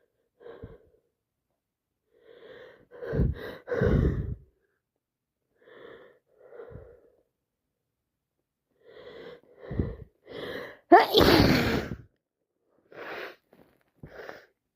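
A woman sneezing again and again in a string of short bursts, the loudest sneeze about eleven seconds in: an allergy sneezing fit.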